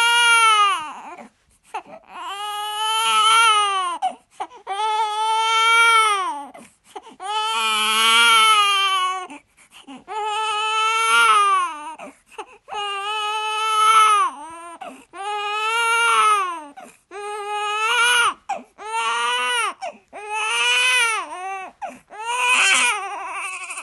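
Baby crying in a long run of wails, about a dozen of them, one every two seconds or so, each rising and then falling in pitch.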